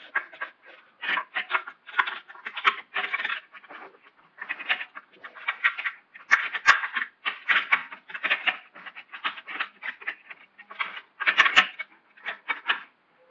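Irregular short rustling and scraping noises, a few a second with brief pauses, from a shirt and hands brushing close to the microphone while a hydraulic hose fitting is worked by hand.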